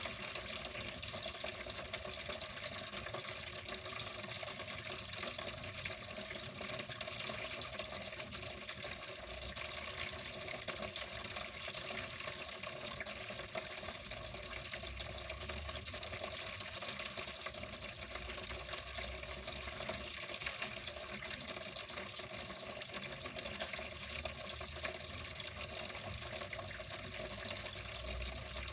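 Water running and splashing steadily at an even level, a continuous rushing with no breaks.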